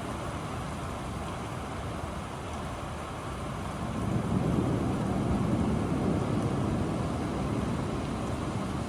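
Steady rain on a window, with a low rumble of distant thunder swelling about four seconds in and slowly fading.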